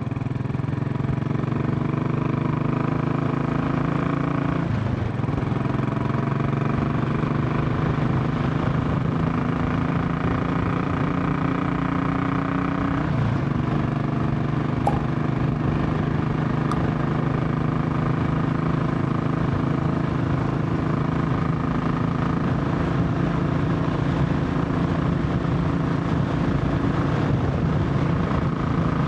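Royal Enfield Classic 500's single-cylinder engine under way on the road. Its note climbs slowly, drops suddenly twice (about 5 and 13 seconds in) as the bike shifts up a gear, then holds a steady cruising pitch.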